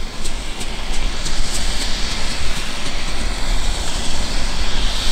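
Ground firework fountain spraying sparks with a loud, steady hiss. A run of small crackles comes in the first second and a half, and the hiss swells after that.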